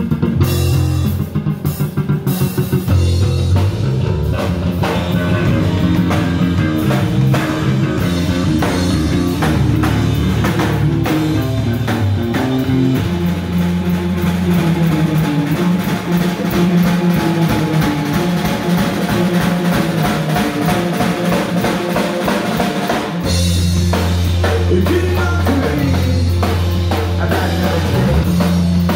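Live rock band playing: electric bass guitar, electric guitar and drum kit. The bass line drops back about halfway through and comes back in strongly a few seconds before the end.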